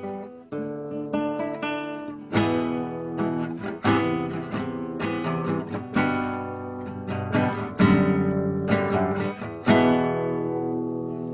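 Acoustic guitar strumming chords, the last chord about ten seconds in left to ring and fade.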